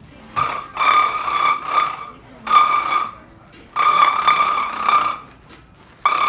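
Balloon lightsaber built from three 260Q latex modelling balloons, its long balloon blade acting as a reed: each swing sets off a steady reedy tone at one pitch, heard as about four separate bursts with short pauses between.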